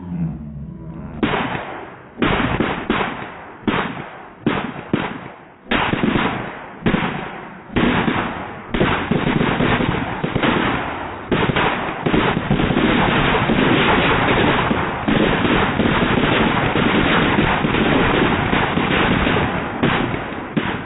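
A string of firecrackers going off: a dozen or so separate sharp bangs over the first eight seconds, then a rapid, unbroken crackle of pops that stops near the end.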